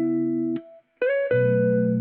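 Background music of plucked, guitar-like notes played as held chords. It cuts out for about half a second near the middle, then starts again with a new chord.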